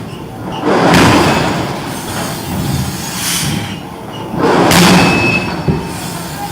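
Forging-shop machinery din with two loud, heavy noisy surges, about a second in and again just before the five-second mark.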